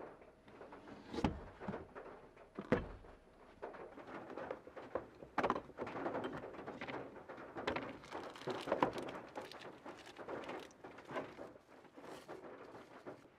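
Two dull thunks about a second and a half apart, then a long stretch of crinkling and rustling as cling film is handled and a plastic food container's lid is worked.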